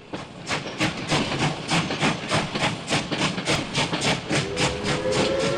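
Steam locomotive chuffing at a quick, even beat of about four exhaust beats a second. About four seconds in, its whistle starts blowing, a steady sound of several tones at once.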